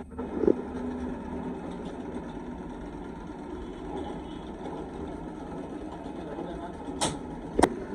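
Machinery running with a steady hum, with a click about half a second in and two sharp knocks near the end.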